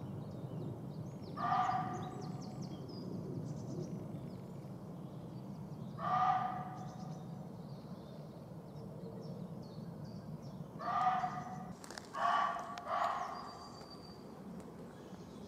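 Muntjac deer barking: short, sharp single barks a few seconds apart, then a quick run of barks near the end. Small birds chirp faintly in the background.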